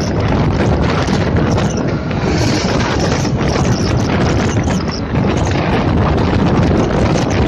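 Loud, steady wind rushing over the microphone of a two-wheeler riding at speed along the highway, with road noise from the ride beneath it.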